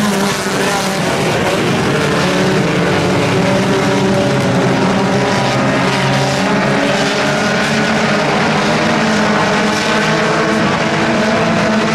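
A pack of compact-class dirt-track race cars running hard around the oval. Their small four-cylinder engines give a steady, dense drone of many overlapping pitches that shift as the cars go by.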